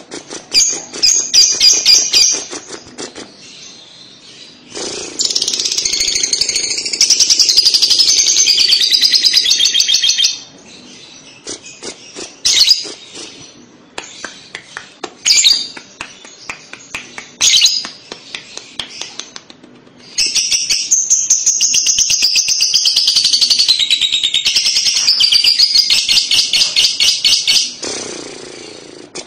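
Lovebird singing its 'ngekek' song, a long, rapid chattering trill, in two long bouts of about five and eight seconds with short, sharp chirps between them.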